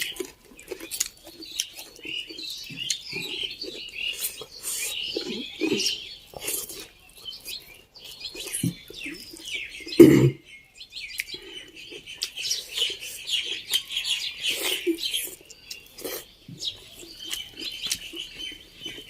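Close-miked chewing and wet mouth clicks of someone eating pork with raw salad, in short irregular bursts. There is one louder thump about ten seconds in.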